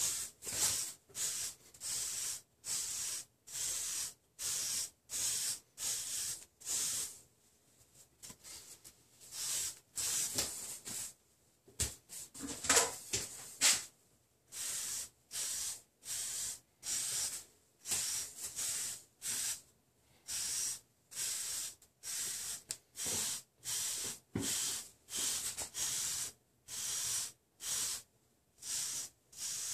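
Hairbrush bristles swept over and over through short waved hair, a scratchy swish about twice a second. There is a short pause, then a louder, rougher stretch near the middle.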